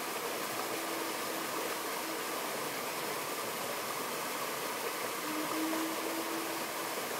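Shallow stream rushing over rocks in a small rapid, a steady hiss of white water. A faint held note sounds twice behind it, once in the first half and again in the second half.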